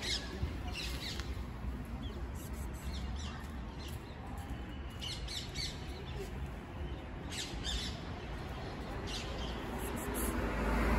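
Small birds chirping in short clusters every second or two, over a steady low rumble.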